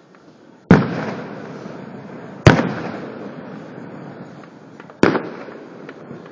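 Aerial fireworks shells bursting: three loud bangs about two seconds apart, each followed by a fading rumble and crackle.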